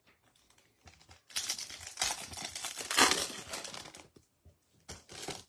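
A Bowman baseball card pack's wrapper crinkling and tearing as it is ripped open by hand, loudest about three seconds in, with a shorter crinkle near the end.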